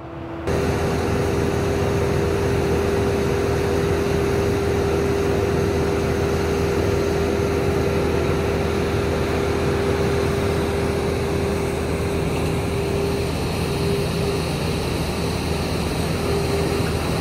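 Steady machinery drone of a FireBox Series 220 air curtain burner's blower running, with one constant humming tone, while a mini excavator works close by feeding slash into the burn chamber.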